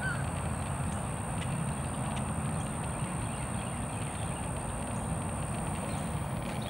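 Outdoor field ambience: a steady low rumble and hiss with a thin, constant high-pitched whine and a few faint scattered ticks.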